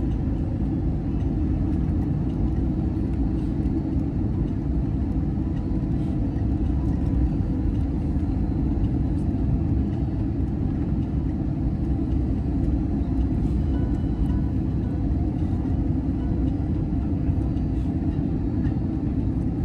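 Steady low rumble of an Airbus A321neo cabin, with engine and airflow noise heard from inside the aircraft.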